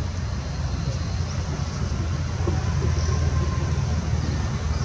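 A steady low-pitched rumbling noise with no distinct events.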